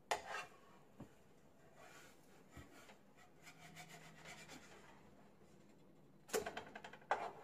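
A silicone spatula scraping against a griddle pan as it works under slices of toasting bread. A sharp scrape at the start and a single tap a second later, faint rasping through the middle, then a quick run of scrapes and taps near the end as the bread is flipped and drops back into the pan.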